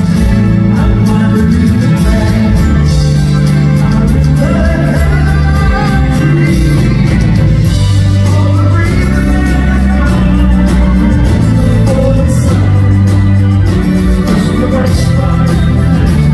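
Rock band playing live with a male lead vocal over acoustic guitars, electric guitar and Hammond organ, with a steady, loud bass line underneath.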